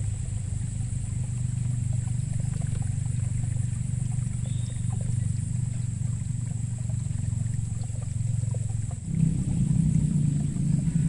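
Motorbike traffic: engines running with a steady low hum, getting louder about nine seconds in.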